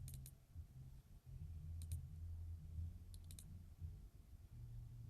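Computer mouse buttons clicking in small quick groups: a couple at the start, two more about two seconds in, and three a little after three seconds, over a faint low hum.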